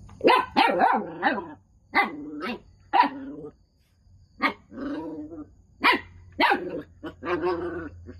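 Dog barking repeatedly, about a dozen loud barks in irregular bunches, some drawn out longer.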